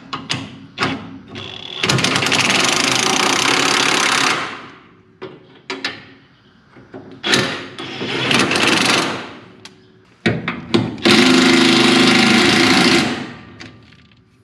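Handheld power tool run in three bursts of about two seconds each, with a rattling, hammering sound, and sharp metal clicks and knocks between the bursts.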